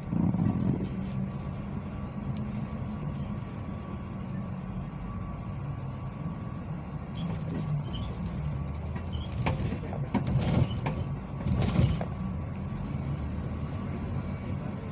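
Steady engine and road noise inside a moving vehicle's cabin, with a few short clicks and knocks of rattling about ten to twelve seconds in.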